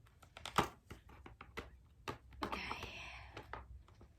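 Irregular small clicks and taps of plastic dinosaur toy figures being handled and set down, the sharpest about half a second in, with a brief rustle of packaging around the middle.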